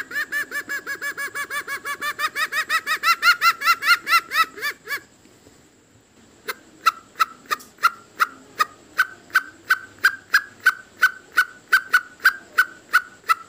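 Junglefowl lure call: a fast chatter of pitched clucks, about eight a second and growing louder, that stops about five seconds in; after a short pause, a slower, even series of sharp clucks about three a second.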